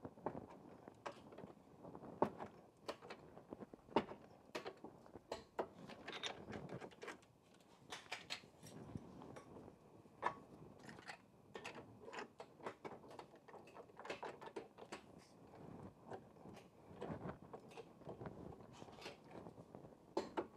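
Faint, scattered metal clicks and clinks of hand wrenches on a brake caliper as its slider bolts are tightened and torqued, with a wrench holding the slider.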